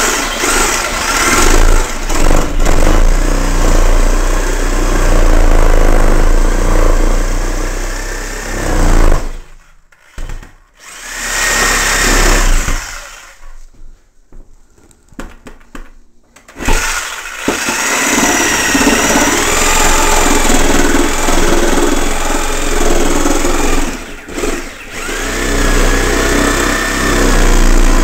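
Electric power tool, most likely a saw, cutting 3/4-inch wood in several long runs, with its motor pitch shifting under load and two pauses in the middle.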